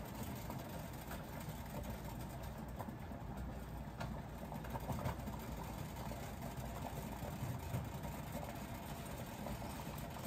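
Steady stovetop cooking noise: a pot boiling hard and onions sautéing in a frying pan, with a few light scrapes and taps of a spatula in the pan.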